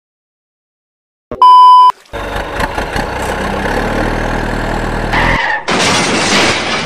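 A short, very loud beep about a second and a half in, then a truck engine sound running steadily for about three seconds. It cuts off and a loud rushing hiss follows near the end.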